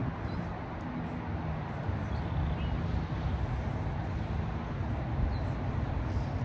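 Steady low outdoor background rumble with an even level and no distinct events, plus a few faint high chirps.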